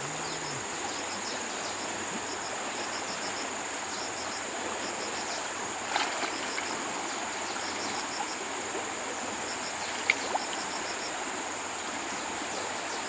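Fast-flowing stream rushing steadily, with insects chirping in short repeating clusters over a steady high insect drone. Two brief sharp sounds stand out, about six and ten seconds in.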